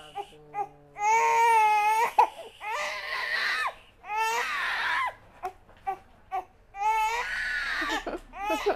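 Four-month-old baby crying hard in four long wails with short breaths between, in pain from a vaccine injection in the thigh.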